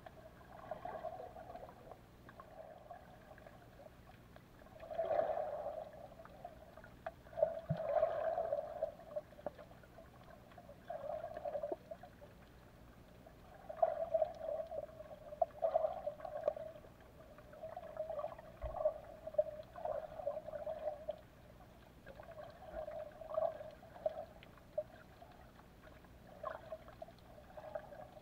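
Muffled underwater water sounds picked up by a submerged camera: gurgling and sloshing that swells and fades every two to three seconds, strongest about 5 and 8 seconds in.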